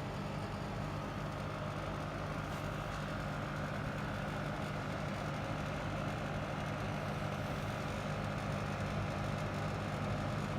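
Kamach 6090 CO2 laser cutting machine running: a steady mechanical hum with a faint whine held on one note.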